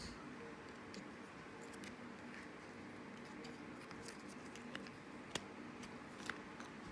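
Faint, scattered small clicks and knocks of a dual-battery squonk box mod being handled as its 20700 batteries are taken out.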